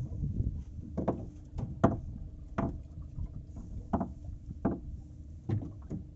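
Irregular knocks and thuds on a small fishing boat, about nine spread unevenly, over a steady low hum.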